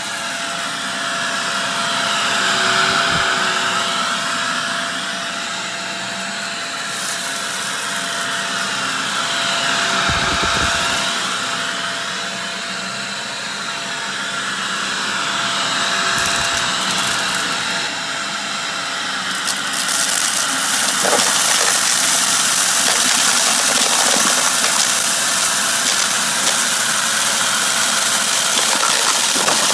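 Shark vacuum cleaner running steadily, its motor pitch rising and falling every few seconds as it is pushed back and forth over scattered dirt. About two-thirds of the way through, a louder, brighter hiss of rushing air joins and stays.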